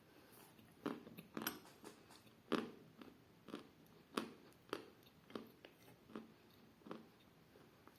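A person biting and chewing a piece of chalk. After a first bite about a second in come short, dull crunches, roughly one every half second to a second.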